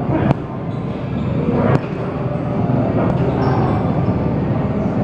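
Kicks and gloved punches landing on a hanging heavy bag: three hard thuds about a second and a half apart, over a steady background rumble.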